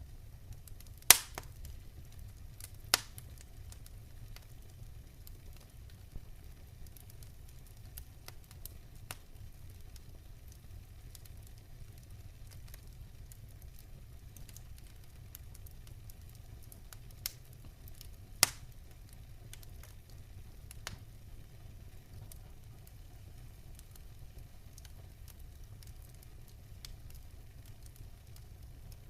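Wood campfire crackling steadily over a low rumble, with scattered small snaps and a few sharp, loud pops: one about a second in, another about two seconds later, and a third around eighteen seconds in.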